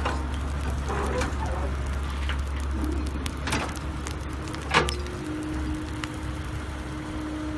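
Caterpillar E110B excavator's diesel engine running with a steady low rumble as the machine swings back from the truck and digs, with a steady whine coming in about five seconds in. A few sharp cracks stand out, the loudest about five seconds in.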